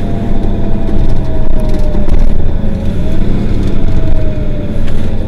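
Mercedes-Benz Citaro Facelift city bus running, a loud low engine rumble with a steady whine over it that sags and rises slightly in pitch.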